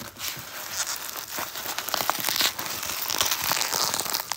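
Plastic bubble wrap being crinkled and pulled open by hand: a continuous rustling and crackling, dotted with many short sharp clicks.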